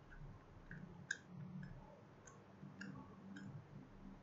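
Faint, scattered light clicks of a USB pendrive being handled and plugged into a USB tester in a laptop's newly replaced USB port, over a faint low hum.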